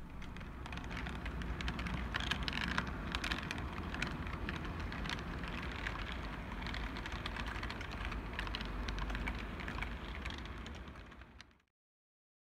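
OO gauge model train running on the layout track: a steady low rumble with rapid, irregular clicking, fading out about eleven seconds in.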